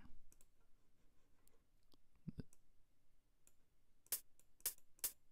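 Computer mouse clicking: a few faint clicks, then three sharp clicks in quick succession near the end.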